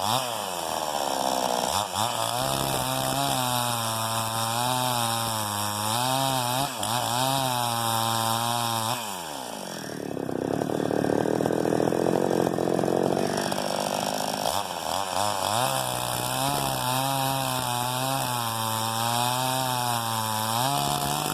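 Two-stroke chainsaw running at high revs while cutting through a dry log, its engine pitch wavering as the chain bites. About nine seconds in, the revs drop sharply into a rougher sound for a few seconds, then rise again and it keeps cutting.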